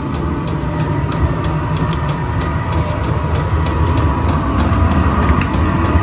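Vevor 8 kW diesel air heater running just after firing up: a steady low rumble with a fan whine over it and a light, regular ticking from its fuel dosing pump, a few ticks a second, growing slightly louder.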